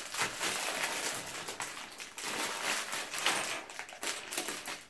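Clear plastic bags full of small LEGO pieces crinkling and rustling as they are handled and set down on a wooden table, with irregular crackles throughout.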